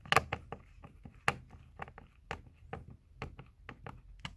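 Screws being undone with a hand tool on the massage chair's leg-rest fittings: a steady run of sharp clicks, about four a second, the loudest of them near the start and about a second in.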